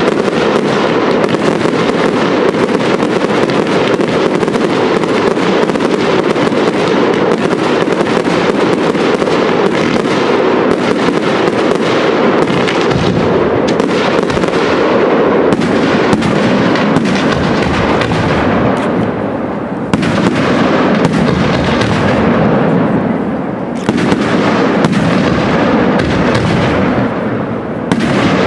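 Fireworks display: a dense, continuous barrage of aerial shell bursts and crackle. Three times in the second half a brief lull is broken by a fresh sharp bang.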